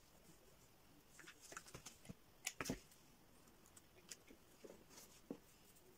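Mostly near silence, with faint clicks and rustles of small foam flowers and cardboard being handled, the loudest cluster between two and three seconds in and a few lighter ticks after.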